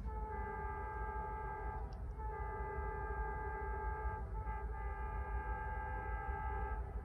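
Air horn of a Norfolk Southern freight locomotive sounding for a crossing: a long blast, a short break about two seconds in, a second long blast, a brief dip about four seconds in, then a further long blast that stops shortly before the end. A steady low rumble runs beneath it.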